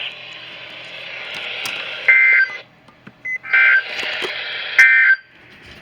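NOAA Weather Radio Emergency Alert System data burst: three short, loud bursts of two alternating tones, about a second and a half apart, over steady radio hiss. Short bursts like these mark the end of the alert message.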